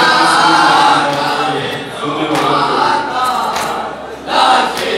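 Men's voices chanting a noha in Urdu: a lead reciter at the microphone with a group of men chanting along, phrase by phrase, a loud new phrase starting shortly before the end. A few sharp thumps sound in between.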